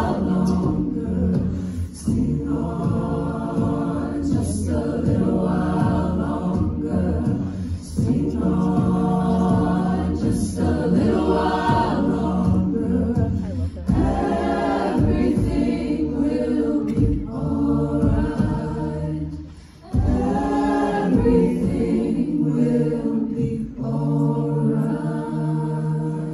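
High school a cappella group of mixed voices singing sustained chords into handheld microphones, in phrases of a few seconds, with a brief drop in level about twenty seconds in before the full sound comes back.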